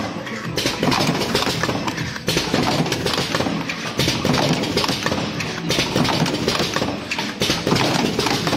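Vertical automatic cartoning machine running: a continuous dense clatter of quick clicks and knocks from its moving parts and the cartons passing through it.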